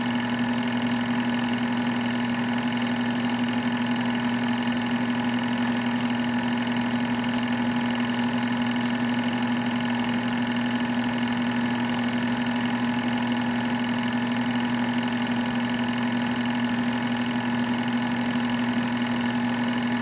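Sears 'Tower' home-movie projector running steadily, its motor and film transport giving a constant mechanical hum with an unchanging drone.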